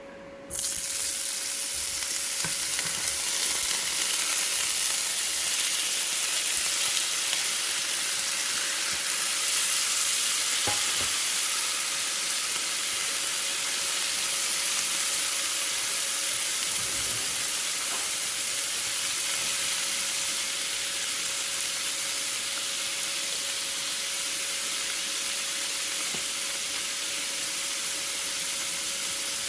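Food sizzling in hot oil in a frying pan or wok. The sizzle starts suddenly about half a second in, as the food goes into the pan, then continues steadily.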